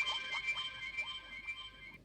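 A Samsung SGH-D500 polyphonic ringtone: an electronic melody of high held tones over short, quickly repeated rising notes, fading out toward the end.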